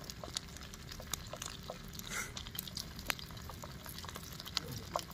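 Hot engine oil bubbling and sizzling in an aluminium kadhai over a wood fire, with many small pops and crackles scattered through a faint, steady hiss.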